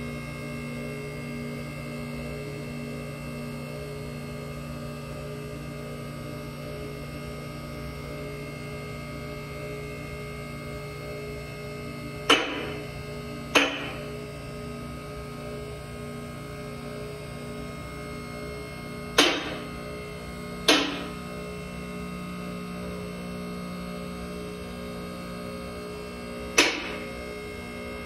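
MaxJax M6K lift's electric hydraulic pump running with a steady hum as it raises the car. The posts' safety locks snap into place on the way up: five sharp clicks, louder than the pump, coming in pairs a second or so apart about every seven seconds from about twelve seconds in.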